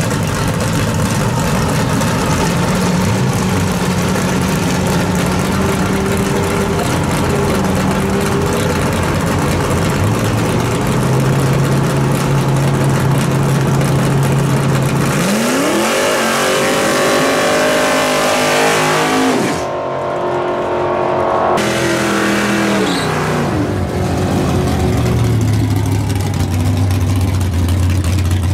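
Plymouth Duster 340 drag car's V8 idles at the water box, then about halfway through revs up hard and holds high for a few seconds with heavy tyre hiss, typical of a burnout. The revs then fall away, and another drag car's engine idles near the end.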